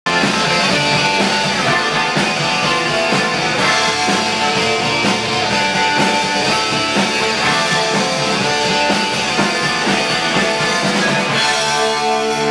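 Rock band playing live: electric guitars over a drum kit, an instrumental passage with no singing.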